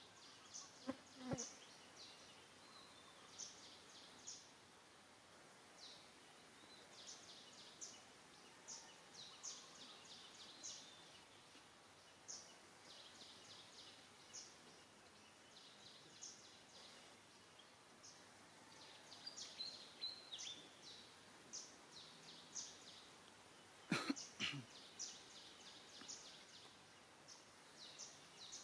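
Faint outdoor ambience with short, high chirps that repeat in quick clusters. There are a couple of soft knocks about a second in, and a louder brief knock or rustle about three-quarters of the way through.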